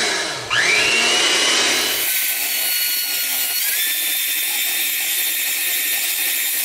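Black+Decker electric hand mixer running, its beaters churning mashed sweet potato, butter and eggs in a glass bowl. The motor whine dips about half a second in and spins back up, the lower churning noise drops away about two seconds in, and the whine steps up slightly in pitch near the middle.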